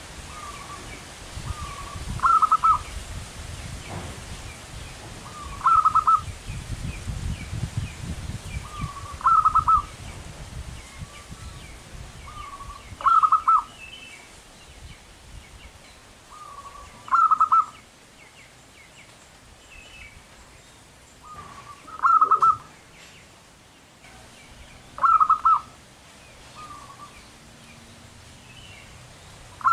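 Zebra dove (perkutut) singing its cooing song: a soft lead-in note followed by a loud quick run of coos, repeated about every three to four seconds, eight times.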